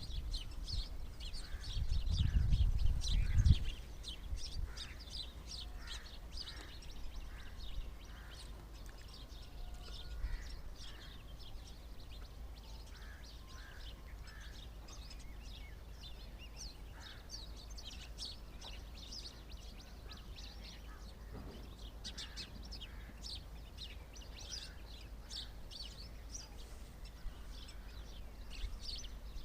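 Small birds chirping, many short high chirps overlapping without pause. A low rumble sounds about two seconds in and stops after a second and a half.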